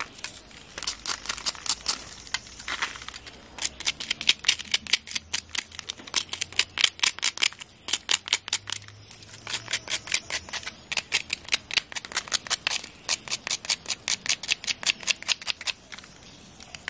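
Knife blade scraping the charred skin off a fire-roasted yam, in quick repeated rasping strokes, about five a second, in runs of a few seconds with short pauses.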